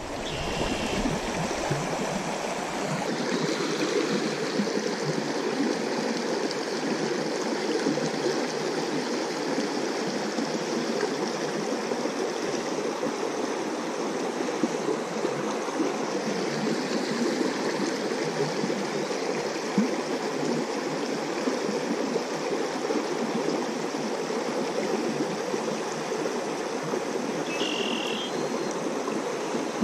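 Shallow creek running over a stony riffle: a steady rush and babble of flowing water.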